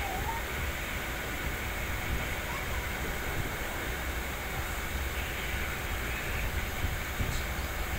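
Passenger train running along the track, heard from inside the coach at an open barred window: a steady, even rumble and rush of wheels and air.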